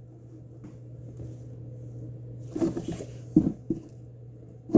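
A few short light taps and clicks of small objects being handled, over a steady low hum. The clicks start about halfway through, and the loudest comes at the very end.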